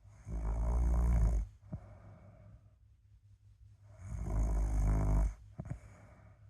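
A sleeper snoring: two loud snores, each about a second long and about three and a half seconds apart, with softer breathing between them.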